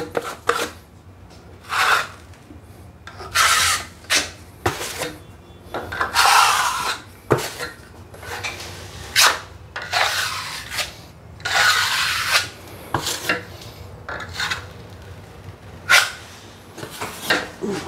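Metal putty knife scraping filler off a handheld board and spreading it over a plasterboard ceiling, laying on a thick first coat: about a dozen short scrapes at uneven intervals, some drawn out to about a second.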